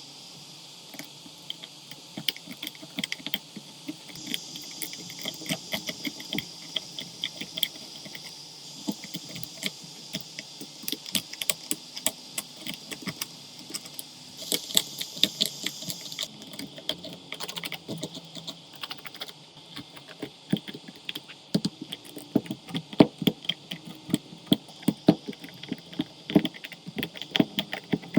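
Dense, irregular clicking and light scraping of small hand tools against the cracked back glass of an iPhone 11 Pro Max as it is worked off, the clicks coming thicker and louder in the second half. A faint steady high hiss runs beneath them for a while.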